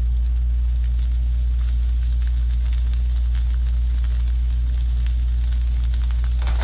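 Diced pancetta sizzling and crackling as it is dropped into a stainless steel skillet of duck fat that is a little too hot, over a steady low hum.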